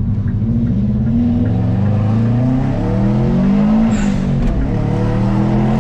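Turbocharged Subaru Impreza flat-four with a VF22 turbo accelerating, heard from inside the cabin: the engine note climbs, drops about four seconds in at a gear change, and climbs again.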